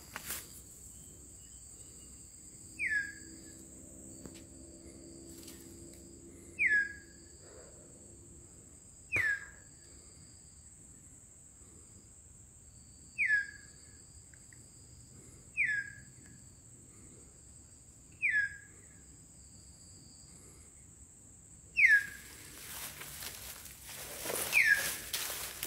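A hill myna gives short, clear descending whistles, one every two to four seconds, over a steady high insect drone. The drone stops a few seconds before the end, and rustling takes over.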